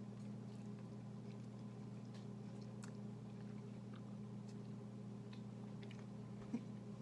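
Faint chewing of a cinnamon bun: soft, scattered mouth clicks over a steady low hum.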